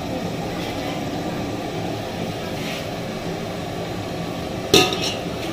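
Steady roar of a gas stove burner heating a large pot of water at the boil, with a single sharp metallic clank near the end.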